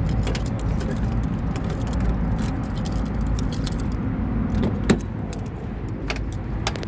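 Car engine running steadily, with keys jangling and a scatter of sharp clicks over it, one louder click about five seconds in.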